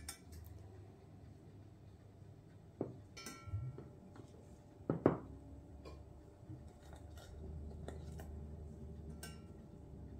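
Quiet kitchen handling sounds of a steel saucepan and a glass baking dish: a few light clinks and knocks as soaked ladyfinger biscuits are laid in the dish and the pan is set down on the wooden counter. The loudest knock comes about five seconds in.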